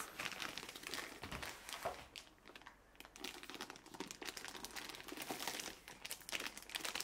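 Packaging crinkling and rustling in short, irregular crackles and scrapes as items are handled and lifted out during unboxing.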